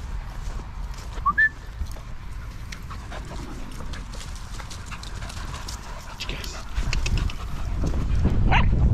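Small dogs panting and scampering on grass close to the microphone, over a low rumble that grows louder near the end. About a second and a half in there is a short, sharp rising squeak.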